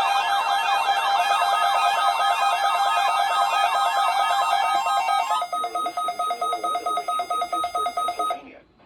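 Weather radio test alarm tones: a fast-warbling, siren-like electronic tone over steady beeps, switching about five seconds in to a rapidly pulsing beep, then cutting off abruptly near the end. The tones are the station's weekly test of the alarm signal that switches on weather alert receivers.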